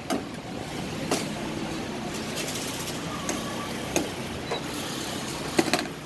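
Steady background hum of a roadside food shop, likely traffic or machinery. Four or so sharp knocks and clicks stand out from it, at about one second, four seconds and near the end.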